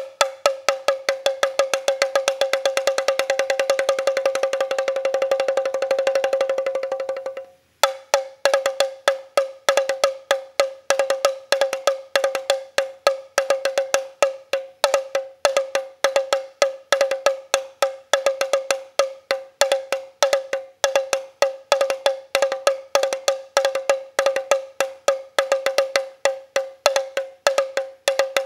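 Krok, a hand-held Thai percussion instrument, struck with a pair of thin sticks. It plays a fast continuous roll that swells slightly for about seven seconds and cuts off suddenly. Separate strokes then follow in uneven groups, each ringing at the same clear pitch.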